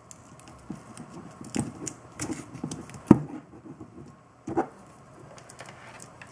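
Masking tape being handled and pressed by hand over the fittings of a plastic CPU water block: scattered crinkles, rustles and light taps, with a sharper click about three seconds in and another about a second and a half later.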